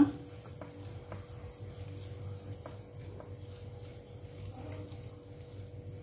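Hands rubbing a wet chermoula spice paste into a whole raw corvina: faint soft squishing with scattered small clicks, over a steady faint hum.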